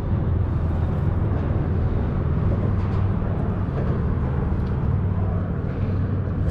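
Steady low rumble of road traffic on an elevated highway bridge.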